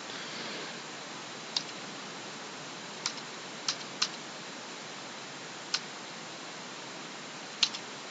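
A few isolated computer keyboard keystrokes, about six sharp clicks at irregular spacing, over a steady hiss.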